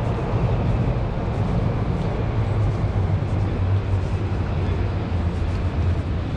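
City street traffic: a steady low rumble of passing vehicles, with no single event standing out.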